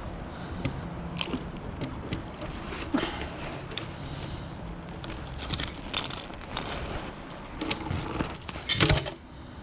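Metal clinking and rattling as a wheel clamp caught on a magnet-fishing magnet is hauled up, with scattered knocks and two louder scraping clanks about halfway through and near the end.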